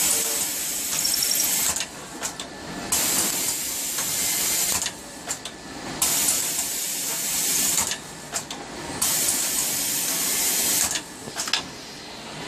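Automatic screw-locking machine at work: four spells of hissing, each about two seconds long and about three seconds apart, with quieter stretches of clicks and knocks between them.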